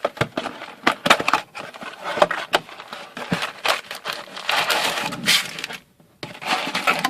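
Hockey card packs being torn open and handled: foil pack wrappers crinkling and crackling, with quick clicks and snaps of cards being handled.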